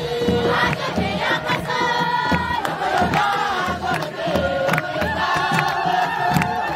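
Large crowd singing a hymn together, with voices holding long notes over rhythmic hand clapping and a steady low beat about twice a second.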